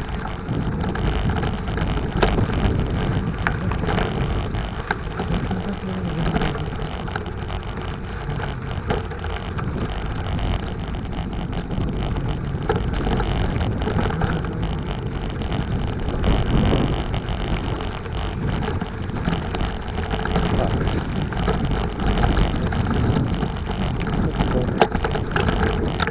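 Bicycle ride: a steady rush of wind on the microphone and rolling noise, dotted with frequent small knocks and rattles from the bike.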